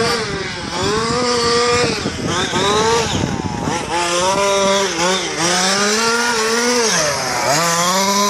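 Losi 5ive-T large-scale RC car's two-stroke petrol engine revving up and easing off again and again as it is driven on the track, its pitch climbing and falling several times.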